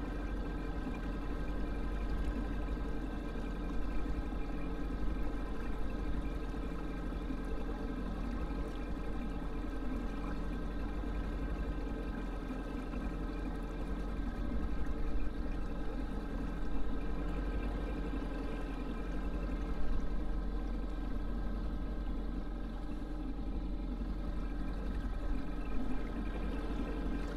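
Small aluminium boat under way: water rushing along the hull over the steady hum of its motor running at constant speed.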